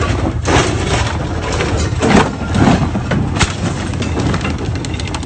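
Side-by-side UTV engine running with a steady low rumble, broken by several loud, rough bursts of noise, the strongest about two seconds in.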